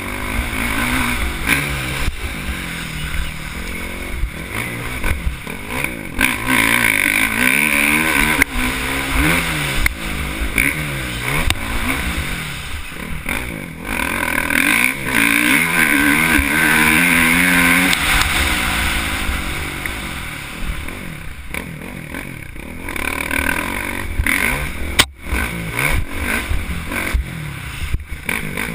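Dirt bike engine heard up close while riding, revving up and down again and again as the rider works the throttle and gears, pulling hardest around the middle. A single sharp knock comes about three-quarters of the way through.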